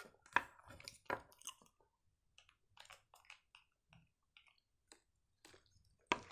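Faint, scattered clicks and small close-up handling noises of a plastic cup of Caesar dressing being squeezed out over a salad, with a sharper click near the end.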